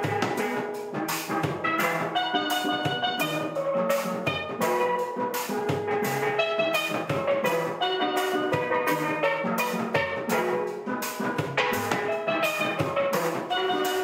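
Steel band playing a lively tune: several steel pans ringing out quick notes over percussion that keeps a steady beat.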